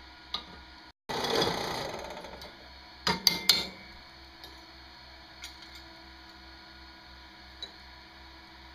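Metal parts being handled at a drill-press bench: a rattling clatter about a second in that fades away, then several sharp metal clanks around three seconds in, followed by a few light ticks.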